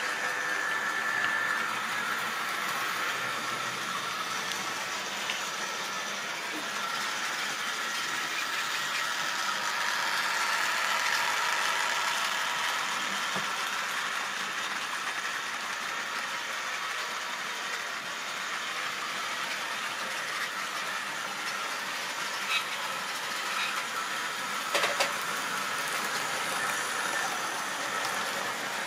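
OO-gauge model train running on the layout track: the steady whine of its small electric motor over the sound of its wheels on the rails, with a few sharp clicks near the end.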